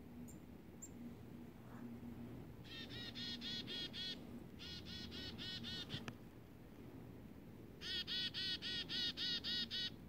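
Chickadee calling: three quick runs of harsh, repeated dee-dee-dee notes, about seven notes a second, with the last and loudest run near the end.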